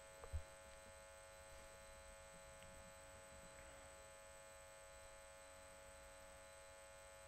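Near silence: a faint steady electrical hum, with one short, soft low knock a moment after the start.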